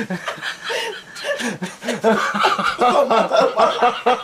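Human laughter: hearty chuckling that turns into quick, repeated bursts and grows louder in the second half.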